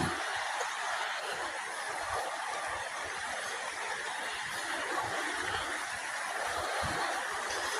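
River water rushing steadily: an even, continuous hiss with no distinct events.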